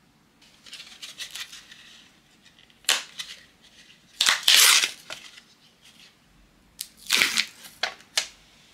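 A spatula scraping cream cheese from a plastic tub, then a Morinaga MOW ice cream cup being unwrapped and opened: crinkling and tearing of its film and lid in several short noisy bursts, the loudest about four to five seconds in.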